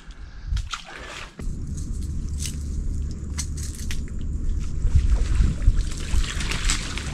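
A steady rumble of wind on the microphone sets in about a second and a half in, with water sloshing and dripping as a crab pot is hauled out of a creek on its rope.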